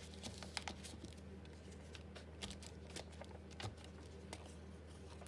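Paper being handled and dabbed on a craft table: scattered light ticks and rustles, over a steady low hum.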